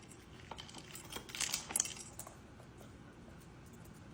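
Light plastic clicks and rattles from a toy slot-machine kibble dispenser as the dog works its lever and spins the reels, a few in the first two seconds.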